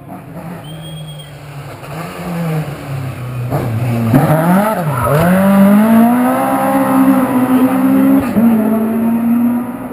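A rally car's engine approaches and goes through a tight chicane. The revs dip sharply about four to five seconds in as it slows for the turn, then climb and hold high as it accelerates away hard, loud and close.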